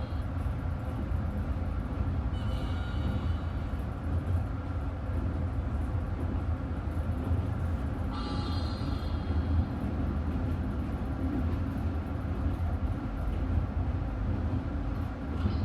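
Passenger train running on the track: a steady low rumble, with two short high-pitched tones, about two seconds in and again about eight seconds in.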